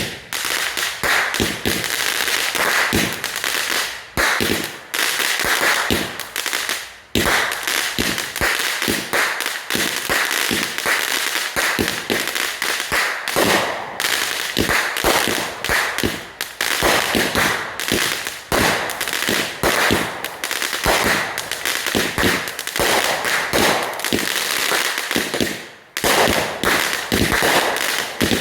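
Firecrackers going off in a rapid, continuous string of sharp pops and crackles, broken by a few brief pauses.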